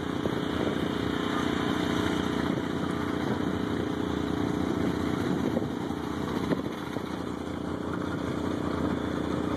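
Engines idling steadily out of sight, a low even drone under a steady hiss.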